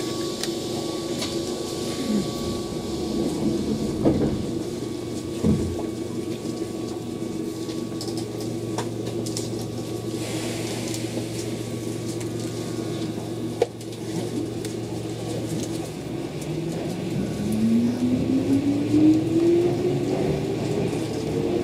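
Interior sound of a Keihan 8000-series electric train: a steady hum of the running gear, with a few short knocks. About three-quarters of the way through, the traction motors begin a rising whine as the train accelerates.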